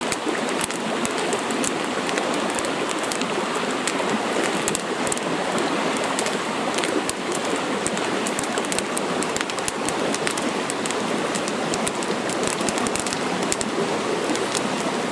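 Campfire burning, a steady hiss dotted with many sharp crackles and pops.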